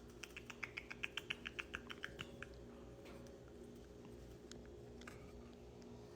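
A parrot making a quick run of about fourteen short, sharp clicking sounds, some six a second, lasting about two seconds, followed by a couple of faint single clicks.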